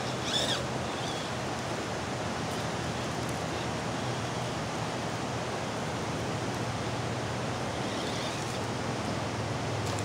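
Steady rushing of water over river shoals, even and unbroken. A brief high chirp comes just after the start and another about eight seconds in.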